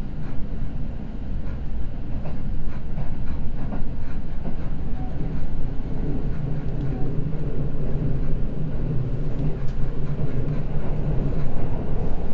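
Seibu Red Arrow limited express train running at speed between stations: a steady rumble of the car on the track with faint clicks of the wheels over rail joints. A low hum strengthens about halfway through.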